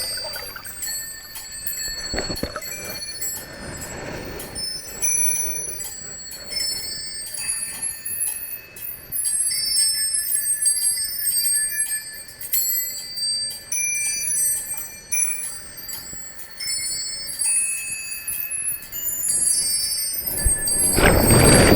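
Small metal chimes tinkling: many short, high ringing notes overlapping at random. Near the end a louder, rushing noise sets in over them.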